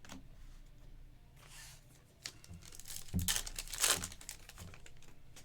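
Foil trading-card pack wrapper crinkling and being torn open: a faint rustle about a second and a half in, then a louder crinkling tear about three seconds in.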